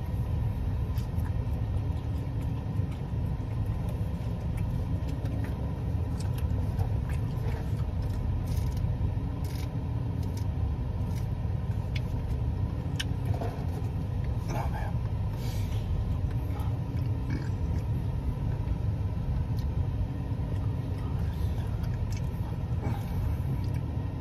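Chewing and mouth sounds of someone eating a roast beef sandwich: scattered wet clicks and smacks, over a steady low rumble.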